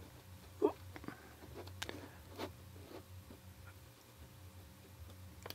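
Faint, scattered small clicks and taps over a low, steady hum.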